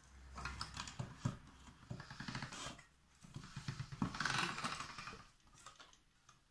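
Hand-cranked pasta machine rolling a sheet of polymer clay through its steel rollers: two spells of clicking and rubbing, each about two seconds long, with a pause between.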